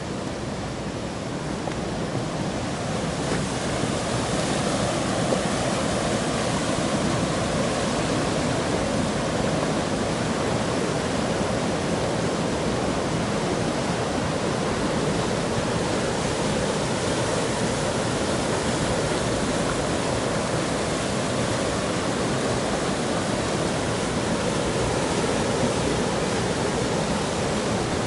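Waterfall and cascading river water rushing steadily. It grows louder about three seconds in, then holds.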